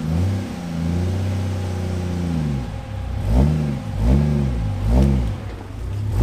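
Turbocharged Ford Barra straight-six in a GU Nissan Patrol revving under load as it crawls over a log: one long rise and fall in pitch, then a run of short throttle blips in the second half.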